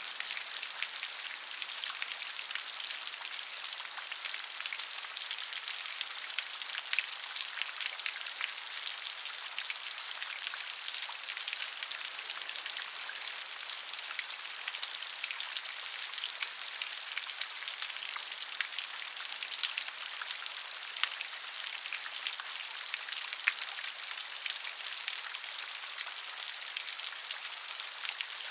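Steady rain falling, a dense hiss of drops with occasional sharper individual drop ticks.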